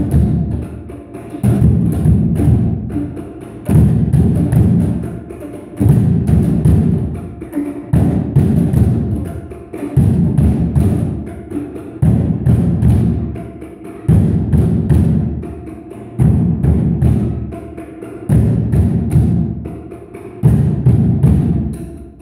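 Batucada played on drums made of stacked tyres, beaten with plastic tubes. A loud drum phrase repeats about every two seconds, with quick light ticks running over it.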